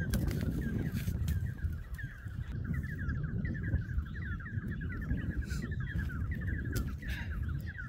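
A bird chirping rapidly and without a break, short falling notes several times a second, over a low rumbling noise with occasional sharp clicks.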